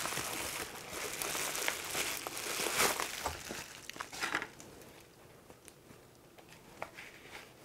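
Bubble-wrap and plastic packaging crinkling and rustling as a camera body is lifted out and unwrapped by hand. It is louder for the first four seconds or so, then settles to quieter, sparse rustles.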